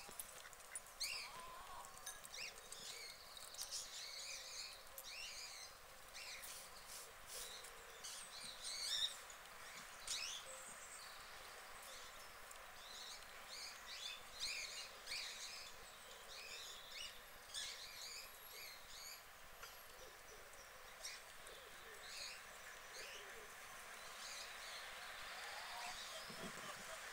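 Small songbirds chirping and singing, faint: many short, high calls and trills scattered throughout, thickest in the first two-thirds.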